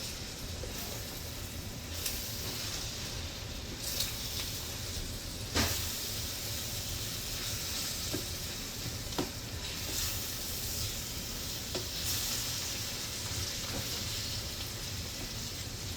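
Vegetables frying in oil in a pan: a steady sizzle, with a few sharp knocks now and then.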